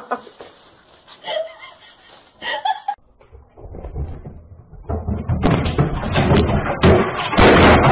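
A rapid clatter of knocks and bangs that starts about halfway through and gets louder toward the end. It sounds thin and muffled, like a security camera's microphone.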